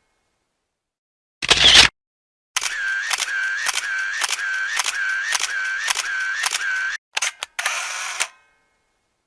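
Camera shutter sound effects. A single shutter click comes first, then a rapid burst of shutter releases with a motor-drive whir, about two to three frames a second for some four seconds. Two quick clicks and a longer shutter-and-wind sound close the run.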